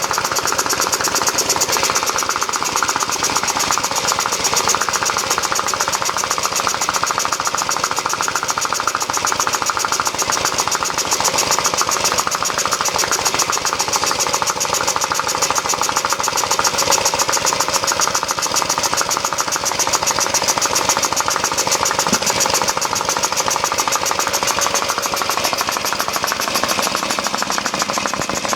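Briggs & Stratton Model Y hopper-cooled single-cylinder engine running steadily, with a fast, even exhaust beat.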